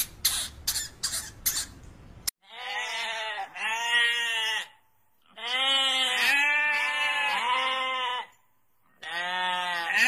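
Sheep bleating: several long, wavering bleats in bouts with short silences between, starting about two seconds in. Before that comes a quick run of short scratchy noises.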